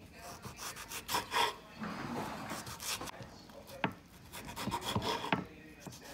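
Kitchen knife slicing a tomato on a wooden cutting board: irregular cuts, the blade knocking and rubbing against the wood with each stroke.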